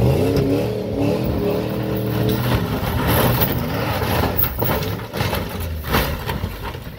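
A pickup engine revving hard as it yanks a chained, wrecked Toyota pickup, then the Toyota tumbling over: scraping and crunching metal with a run of hard knocks and a heavy thud about six seconds in.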